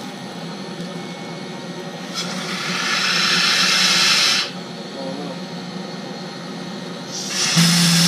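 Exhaust steam hissing from an 8 hp single-cylinder gas engine converted to run on steam. It comes in two bursts: one swells about two seconds in and cuts off suddenly two seconds later, and a shorter one comes near the end. A steady low hum runs underneath.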